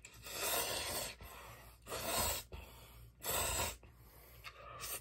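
A person slurping Chapagetti black-bean noodles off chopsticks: three long, loud slurps, then a shorter one near the end.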